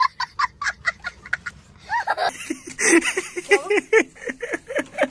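A young child laughing hysterically in rapid, high-pitched 'ha-ha' bursts, several a second, turning into louder, lower-pitched laughter from about halfway through.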